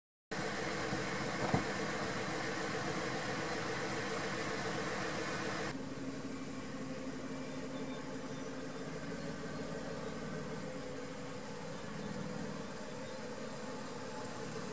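Mitsubishi Pajero SUV engine idling steadily, with one sharp knock about a second and a half in. About six seconds in, the sound shifts to a slightly quieter, lower idle.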